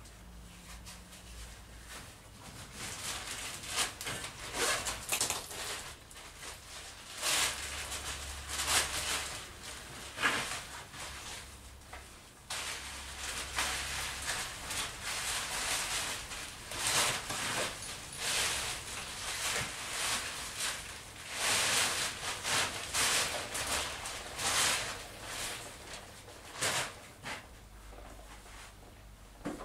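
Irregular rustling and hissing, with a few knocks, as a steam-softened wooden boat runner is taken out of its steamer and handled; steam escapes as it comes out. The sound gets busier about midway.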